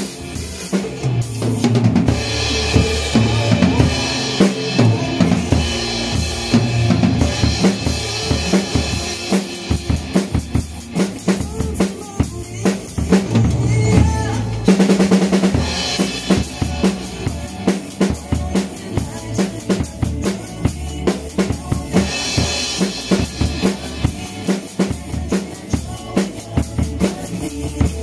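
Acoustic drum kit played with sticks: a steady groove of bass drum, snare and cymbals in quick regular strokes.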